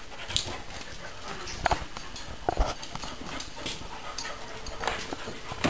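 Two dogs scampering and scuffling on a tiled floor: scattered claw clicks and taps at irregular moments.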